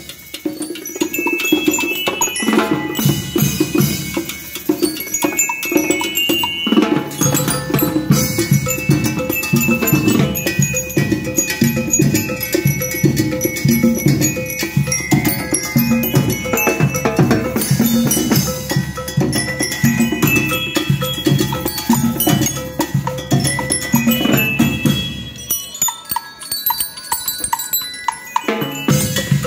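School percussion band (banda rítmica) playing: a bell-like melody on metal bar lyres over a steady drum beat. For a few seconds near the end the drums drop out and the bell-like melody carries on alone.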